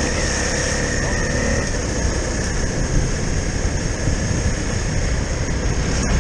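Honda CRF250L single-cylinder four-stroke trail bike running steadily at riding speed, mixed with a constant rush of wind and tyre noise.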